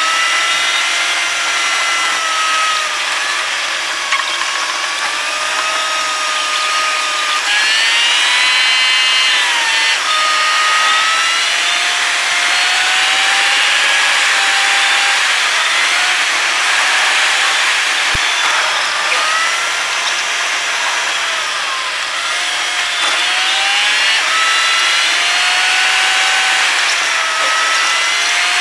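Car engine heard from inside the cabin while driving at speed. Its whine rises and falls in pitch several times as the car speeds up and shifts, over a steady rush of wind and road noise.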